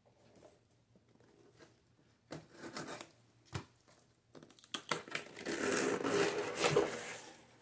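A cardboard mailer box being cut and pulled open: short scrapes and a sharp click, then a few seconds of dense scraping and tearing of cardboard and tape, loudest in the second half.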